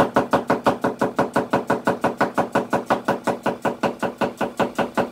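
Chef's knife rapidly slicing an onion thin on a plastic cutting board: a steady run of about six knife strikes a second.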